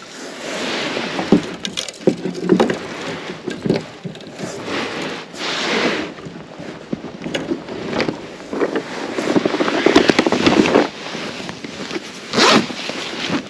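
Close rustling and scraping of fishing gear being handled, with zipper-like rasps and crinkling plastic as a tackle bag is opened and rummaged through, broken by many small clicks and knocks.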